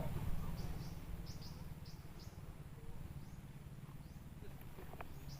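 Outdoor nature ambience: a string of short, faint high chirps from small wildlife, over a steady low rumble. A single light click near the end.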